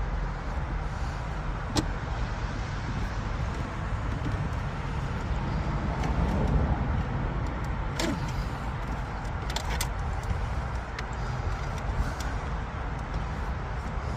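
A few sharp clicks and knocks of plastic dashboard trim being handled and popped loose, over a steady low rumble.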